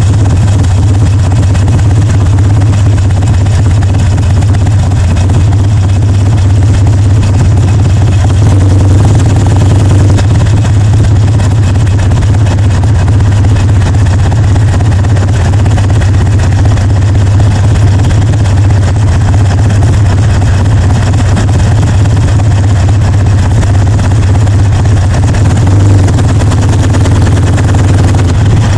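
Harley-Davidson Sportster Seventy-Two's 1200 cc V-twin running steadily at riding speed through loud exhaust pipes, with wind rushing over the microphone.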